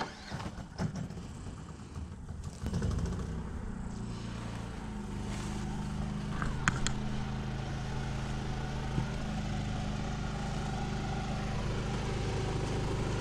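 An engine running steadily at idle, coming in about three seconds in and slowly growing louder, with a few scattered knocks before it.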